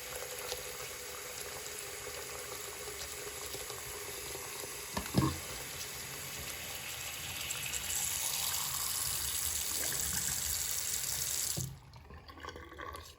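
Bathroom faucet running into a sink. There is a single knock about five seconds in, and the flow gets louder about eight seconds in before cutting off suddenly near the end as the tap is shut.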